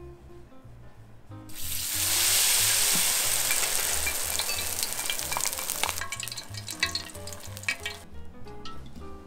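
Battered shrimp tempura deep-frying in hot oil. A loud, dense sizzle starts about a second and a half in, is strongest at first, then eases off and stops abruptly near the end. Light background music plays throughout.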